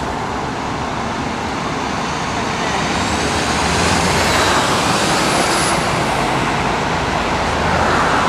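Traffic on a dual carriageway: a steady rush of cars and vans passing, swelling louder as a lorry goes by a few seconds in.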